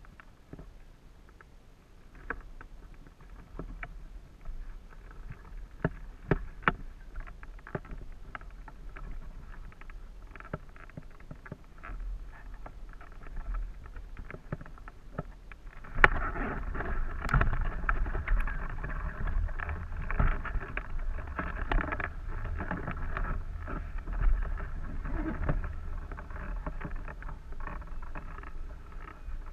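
Hang glider launch heard from a wing-mounted camera: faint clicks and knocks while the glider is held on the ground, then, after a sharp knock about halfway through, a loud steady rush of wind with rattling that carries on into flight.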